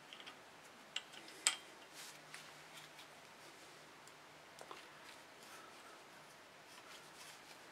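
A few faint, sharp clicks and ticks as a click-type torque wrench is handled and its setting turned to a new value. The two clearest clicks come about a second and a second and a half in, with softer ticks after them.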